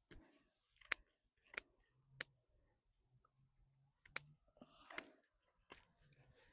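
Scissors snipping dry seed heads off stock plants: about six sharp, separate clicks at uneven intervals.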